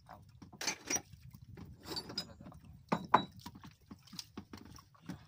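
A knife scraping and knocking as a fisherman works on a red fish, with a run of small clicks between. Two sharp knocks just after three seconds in are the loudest.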